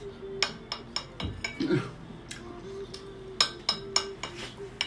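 Chopsticks clinking and tapping against a porcelain plate: a run of irregular sharp clinks, several close together at times.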